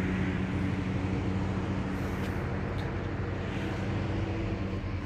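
Steady drone of a vehicle travelling at speed: a low engine hum over constant road and wind noise.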